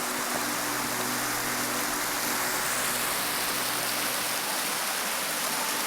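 Steady rushing of a waterfall and mountain creek, an even hiss with no break.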